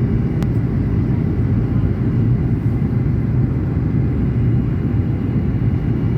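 Steady low rumble of an airplane, with one brief click about half a second in.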